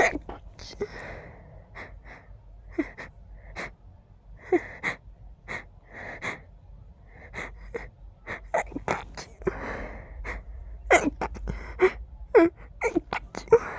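A person stifling a fast allergic sneezing fit: a long run of short, sharp, muffled sneezes with quick catching breaths between them. The sneezes come closer together in the second half.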